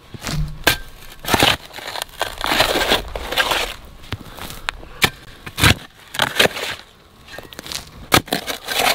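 Steel shovel blade digging into dry topsoil and red clay: repeated scraping, crunching strokes into the ground, with a sharp knock now and then as the blade strikes clods and stones.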